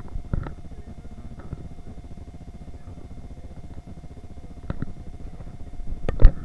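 Supermarket shopping cart rolling, a low rattling rumble from its wheels and frame, with a few sharp knocks and clicks, the loudest a cluster near the end, over a faint steady hum.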